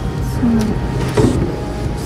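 Heavy flat-pack cardboard boxes being pulled and slid off a metal warehouse rack, with a scrape about a second in, over a steady low hum.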